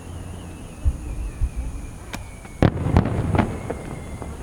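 Aerial fireworks bursting: two dull booms, then a sharp crack and a quick run of three loud bangs, with a faint high whistle sliding slowly down in pitch underneath.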